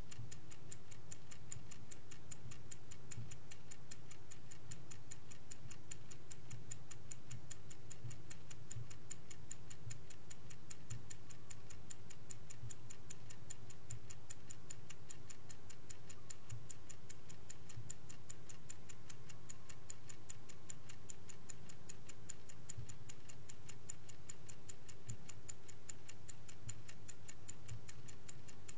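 Vintage Swiss-made Angelus mechanical clock ticking steadily at an even, rapid rate, over a faint low hum.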